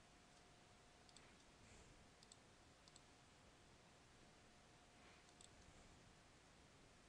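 Faint computer mouse clicks, a few scattered ones, over near-silent room tone with a faint steady hum.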